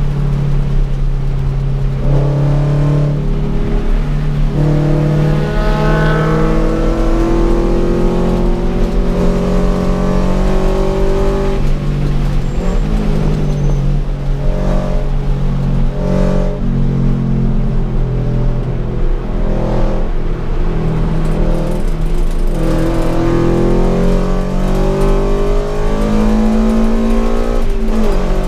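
Toyota GT86's flat-four boxer engine heard from inside the cabin, driven hard on track. Its note climbs repeatedly under acceleration and drops back at gear changes and when slowing for corners.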